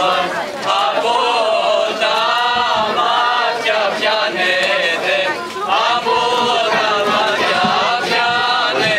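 A group of voices singing a Greek folk dance song with no instruments, in long drawn-out phrases, with short breaks between phrases about half a second in and again about five and a half seconds in.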